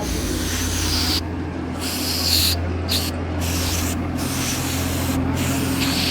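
Toyota XLi engine running steadily with a low hum, under a loud hiss that comes in about five bursts of half a second to a second, each cutting off sharply.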